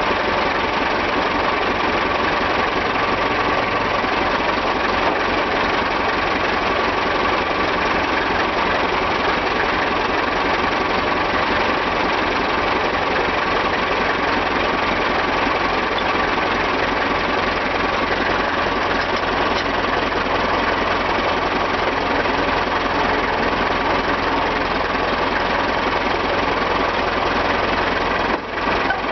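A steady, unbroken machine running noise with no rhythm or separate knocks, dipping briefly near the end.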